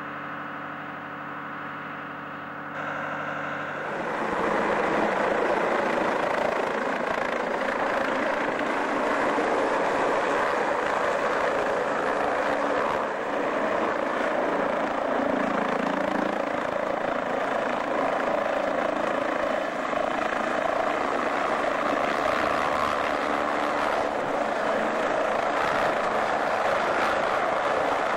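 Light helicopter hovering low overhead, its engine and rotor noise loud and steady. It sets in about four seconds in, after a quieter steady hum.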